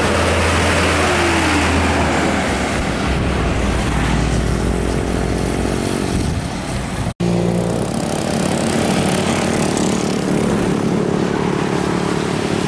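Heavy diesel truck engine (Hino 500) running with a deep steady drone and road noise as the truck passes close by. After a sudden cut about seven seconds in, a second diesel truck, a Mitsubishi Fuso dump truck, is heard running steadily as it approaches.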